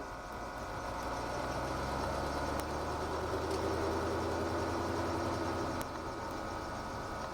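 Ford GT40's engine heard from inside the car at low parade speed: a steady low drone that grows a little louder about a second in and eases back about six seconds in.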